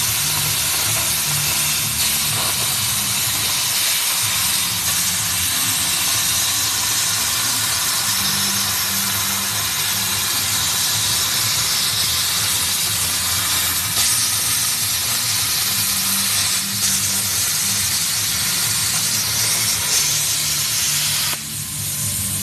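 Plasma cutting torch on a portable CNC cutting machine, its arc and air jet making a loud steady hiss that cuts off suddenly near the end.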